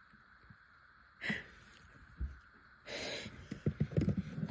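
A person's gasping breaths: a short sharp intake about a second in, a longer breath in at about three seconds, then shaky catching breaths. These are the build-up to a sneeze.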